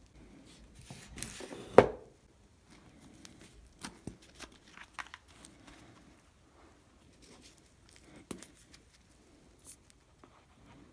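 Workbench handling sounds: a steel F-clamp being screwed tight on a glued wooden piece and set down on the wooden bench with one sharp knock about two seconds in, then light clicks and rustles of gloved hands picking up and handling a plastic glue bottle.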